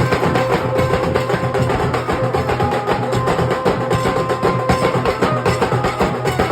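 Nasik dhol drumming in a fast, dense rhythm, with a held melody line stepping between notes over the drums.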